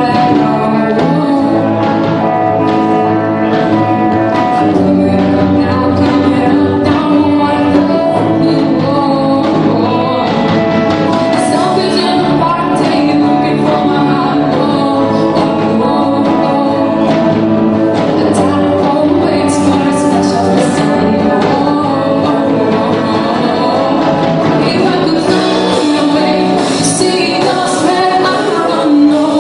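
A song: a singing voice over instrumental backing, played at a steady level throughout.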